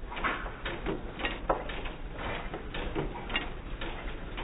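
Old United hit-and-miss gas engine running, its valve gear and flywheel giving an uneven series of mechanical clicks and knocks, roughly three a second.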